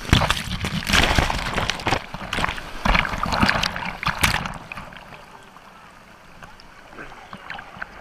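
Seawater splashing and sloshing against a waterproof camera held at the surface as breaking-wave foam washes over it. Loud, uneven splashes for the first four seconds or so, then a quieter wash of water.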